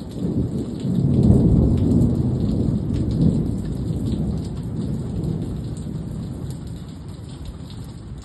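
Rain falling steadily, with a deep roll of thunder that swells about a second in and slowly fades over the following seconds.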